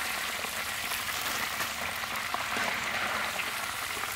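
Hot oil sizzling and crackling steadily in a wok, the dense crackle of deep-frying.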